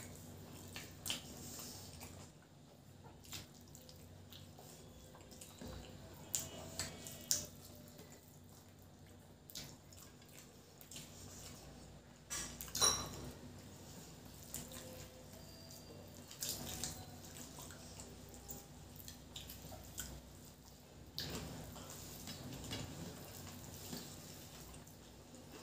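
Wet eating sounds of rice and curry eaten by hand: fingers squishing rice on steel plates and mouths chewing, with many short scattered smacks and clicks.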